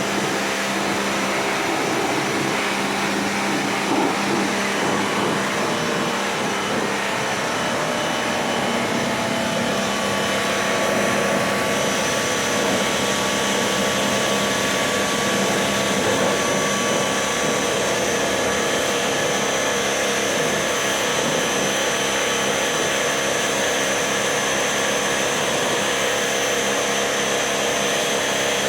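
Electric pressure-washer pump running steadily while its water jet washes a package AC unit's coil.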